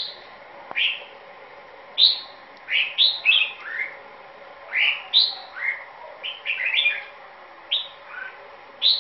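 Caged red-whiskered bulbul, nearly through its moult, singing short clear whistled phrases of a few rising and falling notes, about one phrase a second.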